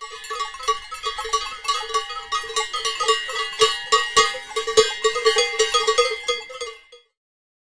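Several livestock bells clanging irregularly together, as worn by a herd on the move, a continuous jangle of overlapping ringing strikes that cuts off suddenly about seven seconds in.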